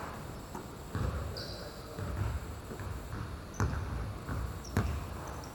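Basketball bouncing on a court: several dull thuds roughly a second apart, with a couple of sharper smacks near the end and a brief high squeak about a second and a half in.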